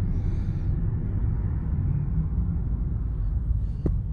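Steady low rumble of a car driving, heard from inside the cabin, with a single short click near the end.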